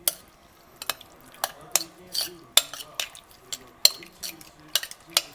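A metal spoon stirring in a bowl, clinking against it in about a dozen sharp, irregular knocks.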